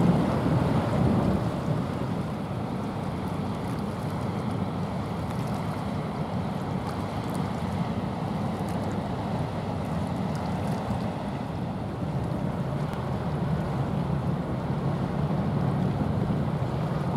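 Wind rumbling on the microphone over a choppy sea, a steady low noise that is a little stronger in the first second.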